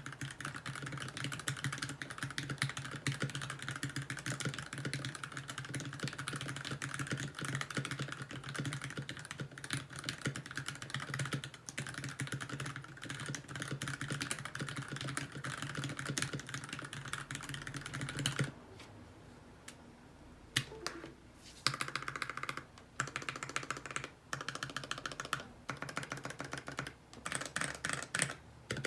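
Typing on an NK65 Entry Edition mechanical keyboard with a polycarbonate case and plate, lubed Gateron linear switches, HK Gaming Modo Light keycaps and stock stabilizers. Fast, continuous typing runs for most of the first two-thirds, then pauses briefly, then goes on in shorter bursts with gaps between them.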